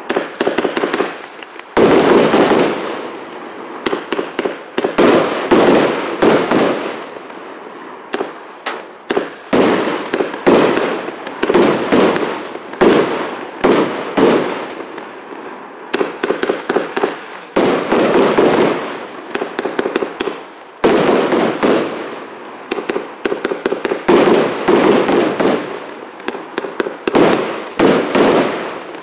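Prestigious Pyrotechnics 'Convulsion' multi-shot firework going off: a run of loud shots and bursts, many coming as quick clusters of rapid pops, with only short lulls between volleys.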